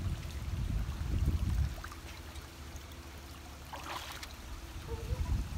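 Wind buffeting the microphone in low gusts for the first second and a half, then a steady faint outdoor rushing, with a brief rustle of dry grass about four seconds in.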